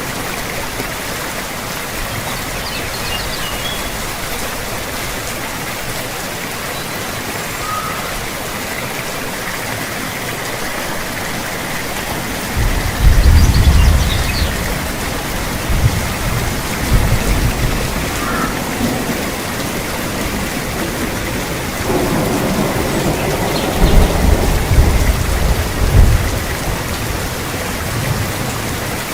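Steady rain hiss, with two low rolls of thunder, the first about halfway through and the second, longer one a few seconds before the end.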